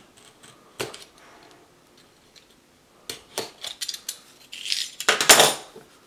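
Utility knife slitting the seal stickers on a cardboard phone box, with light clicks and scrapes, then a louder scrape of about half a second from the box being handled, a little after five seconds in.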